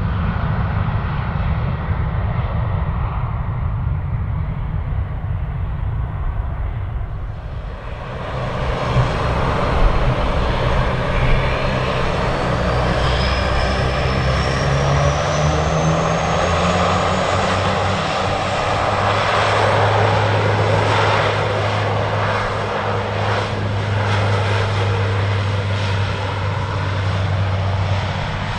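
Jet engines of an Embraer E190 (GE CF34-10E turbofans) running for the first several seconds; then, after a cut, the Pratt & Whitney PW150A turboprops of a Bombardier Dash 8 Q400 spooling up for take-off, a whine rising in pitch over a few seconds and then a steady low propeller drone.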